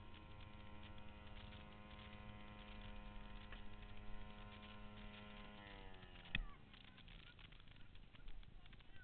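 Side-by-side UTV's engine, heard faintly and muffled as a steady hum. About six seconds in it drops in pitch and fades away, followed by a single sharp click.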